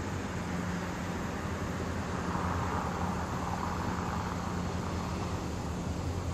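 EMD GP16 diesel locomotive approaching slowly at the head of a freight train, its engine running with a steady low drone under a hiss that swells a little around the middle.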